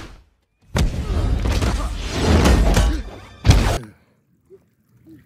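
Movie fight-scene sound effects: a sudden crash, then a dense stretch of crashing and rumbling, and one hard hit about three and a half seconds in. After that it goes quiet.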